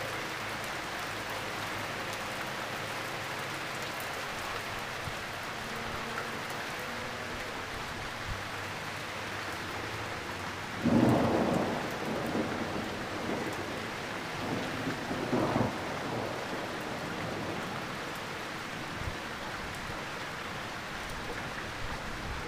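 Steady rain falling, with a sudden clap of thunder about halfway through that rumbles on for several seconds and swells again a few seconds later.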